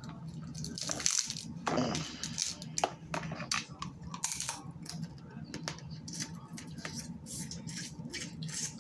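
Snow crab leg shell being cracked and pulled apart by hand, with close-up eating: a run of small sharp cracks and clicks.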